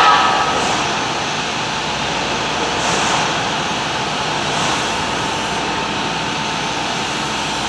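Steady running noise of workshop machinery on a factory floor. A loud ringing metallic clang dies away at the very start, and another hits right at the end.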